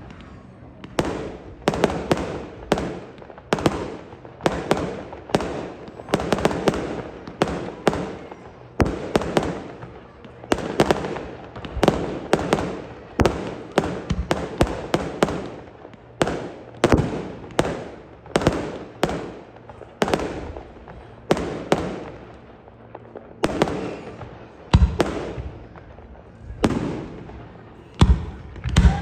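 Aerial fireworks shells bursting in quick succession, about one to two bangs a second, each bang trailing off in a rolling echo.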